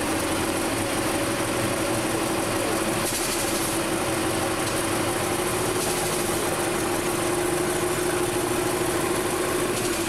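Super stock pulling tractor's turbocharged diesel engine idling steadily, with a steady tone running over the engine noise.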